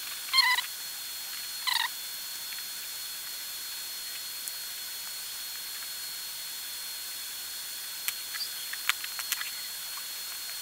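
Two short, high squeaks in the first two seconds as a removed graphics-card fan is gripped and wiped with a cloth, then a few light clicks and taps of plastic handling near the end.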